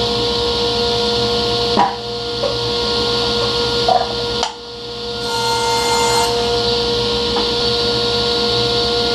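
A few short knocks of plywood pieces being handled and set down on a table saw's steel top, one about two seconds in and another around four seconds, over a steady background of held tones.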